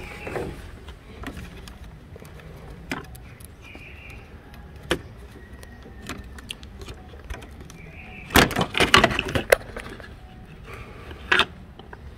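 Metal clicks and clinks of hand tools and parts being handled under a car's engine, scattered at first, then a busy clatter of quick clicks a bit past the middle and another click near the end.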